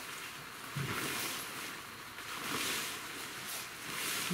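Large dome screen tarp's fabric rustling and swishing as it is pulled and spread out over the ground, in several swells.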